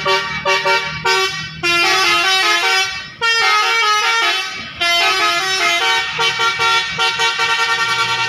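Bus's Basuri 'telolet' melody air horn playing a tune of short notes that step up and down in pitch, breaking off briefly three times, then stuttering into a fast run of short toots in the second half.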